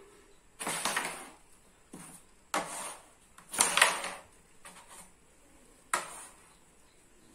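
Carrom striker flicked across a powdered carrom board, clacking into the coins and sending them sliding and knocking against the wooden frame. Several separate shots, the loudest about halfway through.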